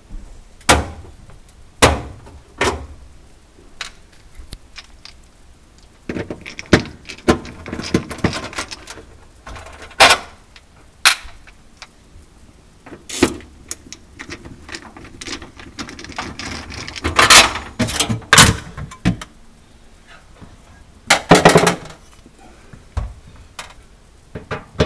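Irregular sharp clicks and knocks of a screwdriver and loose metal and plastic parts as screws are backed out of a refrigerator's interior panel, with a few longer stretches of scraping and rattling as the panel is handled.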